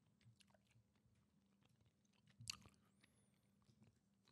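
Near silence: room tone with a few faint small clicks, one a little louder about two and a half seconds in.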